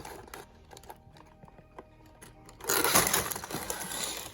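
Contents of a Lego set box, sealed plastic bags of pieces and a paper instruction book, being dumped out: a few faint clicks, then a loud rattling rustle of plastic about three seconds in that lasts over a second.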